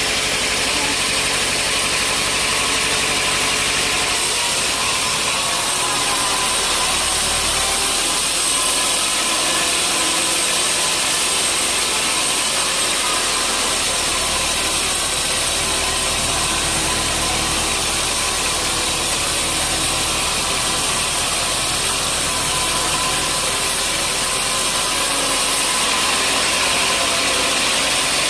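Sawmill saw running steadily through a log, a continuous loud machine noise. A deeper hum joins about four seconds in and drops away near the end, as the blade works through the cut.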